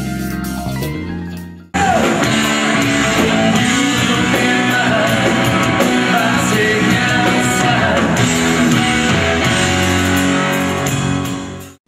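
Guitar music fades out, and about two seconds in a live rock band starts up: electric guitars, drums and a lead singer. It cuts off abruptly just before the end.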